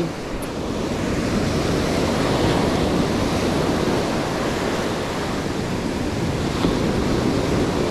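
Rough sea surf breaking and washing up a sandy beach: a steady, continuous rush of waves.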